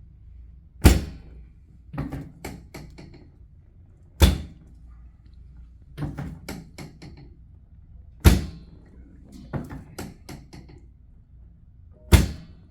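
Chiropractic drop table thunking four times, about four seconds apart, as the drop section falls under each thrust. Each thunk is followed by a run of lighter clicks.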